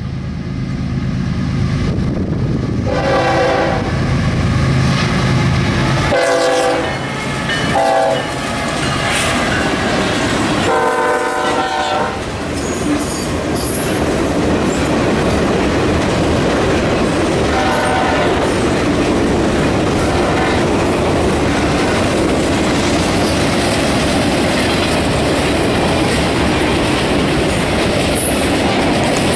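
Diesel freight locomotive sounding its horn in several blasts over roughly the first twelve seconds, its engine running underneath. After that the train's cars roll past with a steady rumble and wheel clatter.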